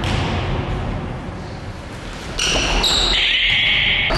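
Basketball game sounds on a wooden gym court: a ball bouncing, then a loud high-pitched squeal from a little past halfway, lasting nearly two seconds, changing pitch once.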